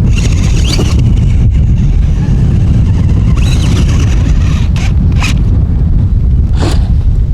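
Wind buffeting the microphone, with a radio-controlled off-road car's motor whining up and down in short bursts and a few brief scrapes.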